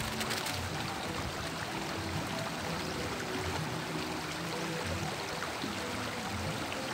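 Small rocky stream flowing, a steady rush of water, with soft background music under it.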